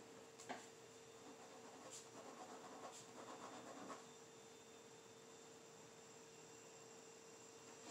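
Faint scratching of handwriting on a paper file folder, the strokes heard mostly in the first four seconds, with a light tap about half a second in, over a faint steady hum.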